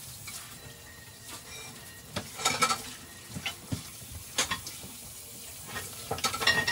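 Food cooking on the stove: a cast iron skillet of bitter gourd and fish sizzling softly beside a covered pot of rice at the boil. Three clusters of sharp crackles and clicks stand out, the last and loudest near the end.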